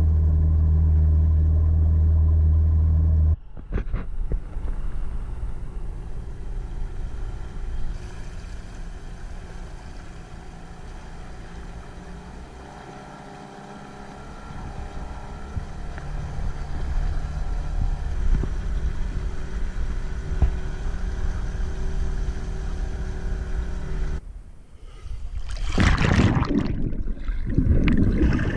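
Outboard motor on a small aluminium runabout running steadily under way, a loud even hum that cuts off about three seconds in. A quieter steady rush follows. Near the end come loud, irregular splashing and bubbling as the microphone goes under the water.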